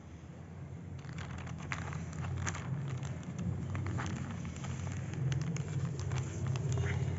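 Plastic wrap crinkling and crackling as it is pulled off a new laptop, irregular crackles starting about a second in, over a steady low hum.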